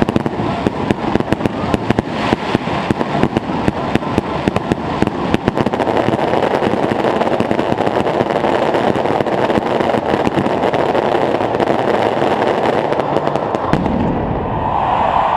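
Fireworks finale barrage. A rapid string of bangs and pops for the first five or six seconds merges into a dense, continuous crackle, which cuts off near the end.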